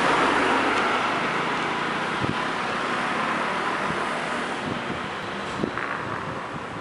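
City street traffic with motor scooters passing, a steady noise that slowly fades, with a couple of brief knocks along the way.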